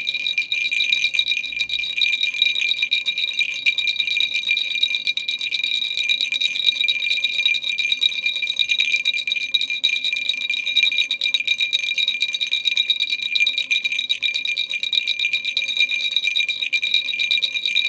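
Baby rattle with small bells, shaken continuously: rapid, dense jingling over a steady bright ringing.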